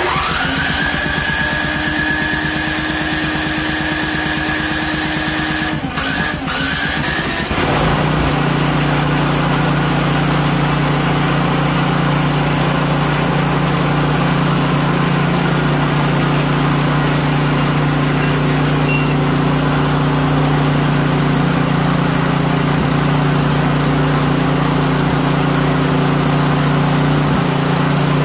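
Brand-new small gasoline engine, on choke, starting at once and running on water-contaminated gas treated with Phaser 3000. Its sound changes about seven seconds in, then it holds a steady run, rattling on its table.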